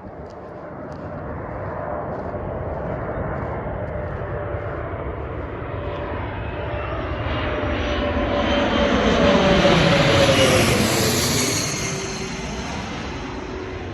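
Airplane passing low overhead: the engine noise builds to a peak about ten seconds in, then eases off. A whining tone drops in pitch as it goes by, with a high whistle at the loudest point.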